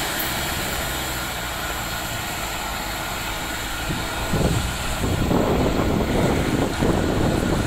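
Passenger train rolling away along the track, its rumble fading into the distance. From about four seconds in, gusts of wind buffet the microphone and become the loudest sound.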